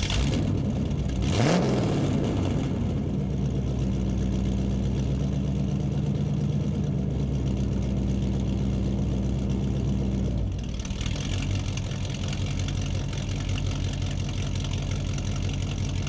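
A car or truck engine that has just started, revving briefly about a second and a half in and then idling steadily. About ten seconds in the sound shifts, a little quieter and with more hiss on top.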